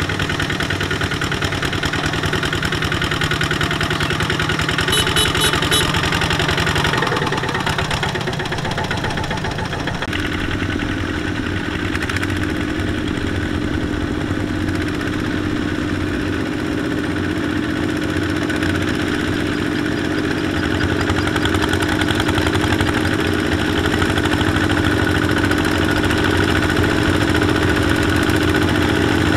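Single-cylinder diesel engines of Kubota RT140 power tillers chugging steadily under load as they haul rice sacks through mud. The engine note changes about a third of the way through and settles into a steadier drone.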